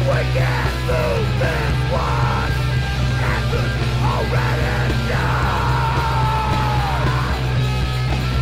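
Loud punk/heavy-style music with a yelled vocal over a steady, droning bass, including one long held cry that falls away near the end.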